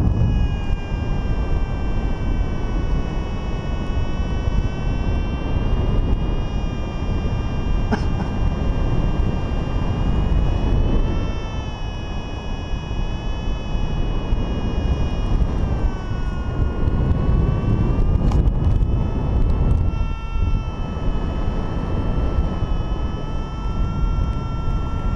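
Airflow buffeting the microphone of a paraglider pilot in flight: a loud, steady rumble, with a thin whine above it that slowly wavers in pitch.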